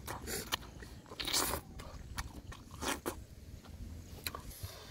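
A man chewing food with his mouth close to the microphone: irregular short mouth clicks and smacks.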